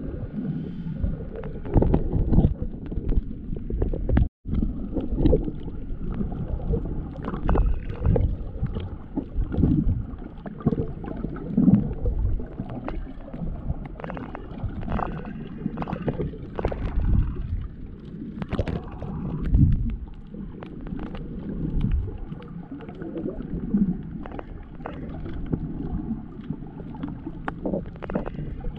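Muffled, surging rumble and gurgle of water around a camera held underwater, with a brief cut to silence about four seconds in.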